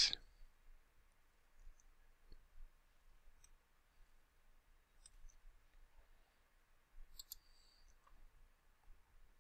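A few faint, scattered computer mouse clicks over quiet room tone, with a short cluster of clicks about seven seconds in.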